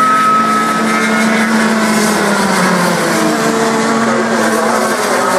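Several go-kart engines running together on the track, at different pitches that rise and fall as the karts go round.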